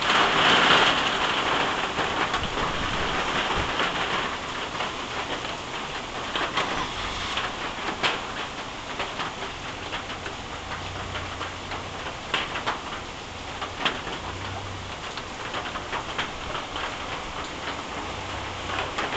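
Steady rain falling on wet tree leaves and a corrugated metal roof, with single drops ticking sharply now and then. It is heaviest in the first few seconds, then settles to a lighter, even patter.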